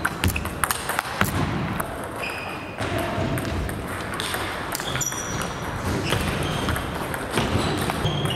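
Table tennis rally: the plastic ball clicking off rubber paddles and the table, a quick run of hits in the first second or so, then more scattered hits. Short high squeaks, typical of sports shoes on the gym floor, come in between, with clicks from other tables in play around the hall.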